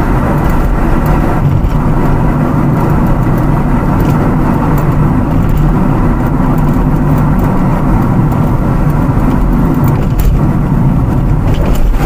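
Steady road noise of a moving car heard from inside its cabin: tyres on asphalt and the engine humming at an even speed.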